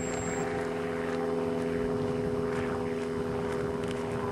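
Small RC model airplane's motor running steadily at low throttle, propeller turning, as the plane sits on the runway after landing.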